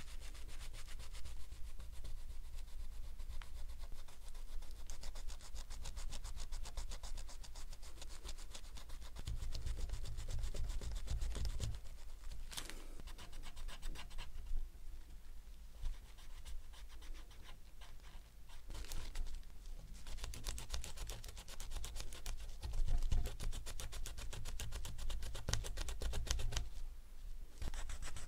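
Rapid back-and-forth rubbing strokes on metal, a watch case or bracelet being polished by hand, with a few brief pauses.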